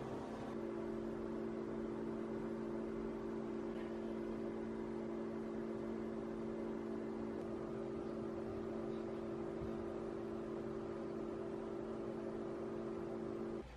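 A steady low hum holding two pitches, cutting off suddenly at the end.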